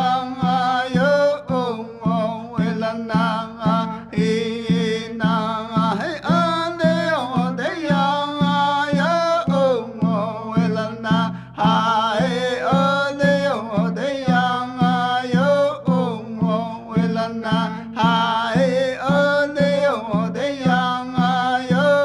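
A song: a voice singing with a wavering, held melody over plucked-string accompaniment and a steady low beat about twice a second.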